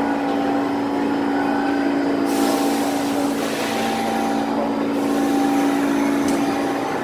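New York City Subway R46 car standing at the platform with a steady electrical hum; about two seconds in, a loud hiss of air lasts around three seconds, and a short click comes near the end.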